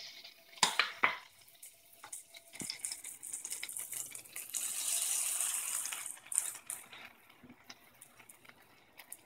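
Butter sizzling as it melts and foams in a hot cast iron skillet, after two sharp clicks near the start. The sizzle builds to its loudest in the middle and dies away to faint ticks near the end.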